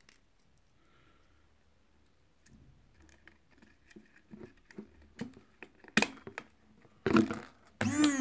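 Small plastic clicks and taps of hand blender parts being handled as a spring and the on/off button are fitted into the housing, with a sharper click about six seconds in. Near the end a loud, wavering pitched sound starts.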